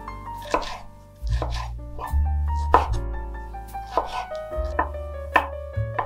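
Chef's knife chopping bell peppers on a wooden cutting board, with steady strikes a little more than one a second, over background music.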